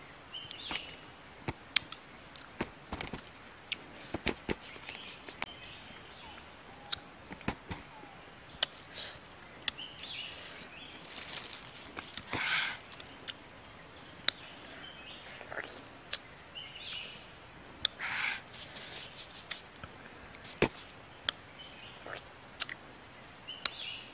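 Close-up eating sounds of a peeled fruit being bitten and chewed: many sharp lip smacks and chewing clicks, with a few longer wet sucking or slurping sounds, over a steady high-pitched insect drone.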